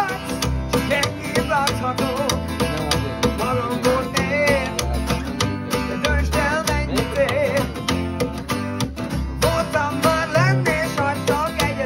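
Rockabilly-style duo playing live: an acoustic guitar strummed in a steady rhythm over plucked upright double bass notes, with a man singing a Hungarian-language song.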